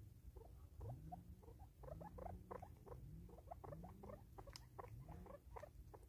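Natal spurfowl pecking food off a wooden stump: a quick, irregular scatter of small taps and clicks. Under it, faint low rising notes recur about once a second.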